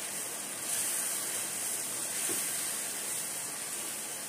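Vegetables sizzling steadily in hot oil in a non-stick wok over high heat as they are stirred with a plastic spatula.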